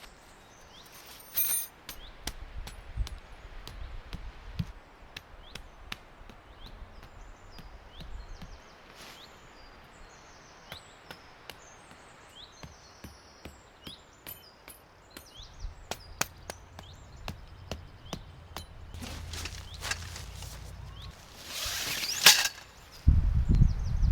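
Sharp knocks and taps at irregular intervals, typical of hands-on work at a campsite, with small birds chirping in the background. A louder rustling burst comes near the end, followed by a low thud.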